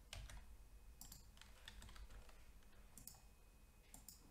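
Faint, scattered keystrokes and clicks on a computer keyboard and mouse, coming in small clusters, over a low steady hum.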